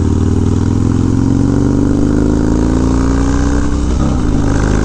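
Harley-Davidson Dyna's Twin Cam V-twin running through a Bassani Road Rage 3 exhaust while riding. Its note rises slowly as the bike pulls, then changes about four seconds in, over steady wind rush.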